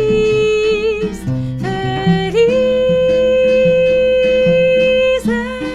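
Live samba music from a small acoustic ensemble. Two long held melody notes, the second one higher, ride over plucked guitar accompaniment.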